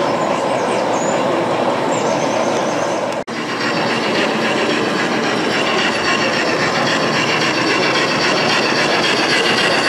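Model trains running steadily on an exhibition layout. The sound drops out for an instant about three seconds in, then carries on.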